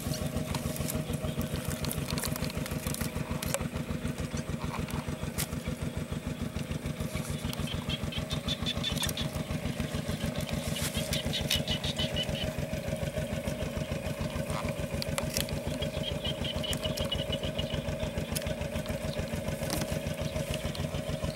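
A small engine running steadily at idle, an even pulsed rumble with a constant hum, with a few brief high chirps over it.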